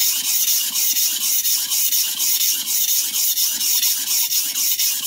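Stainless steel Henckels santoku blade stroked back and forth on a sharpening stone: even, repeated scraping strokes with a strong hiss. The heel of the edge is being ground to remove a small chip.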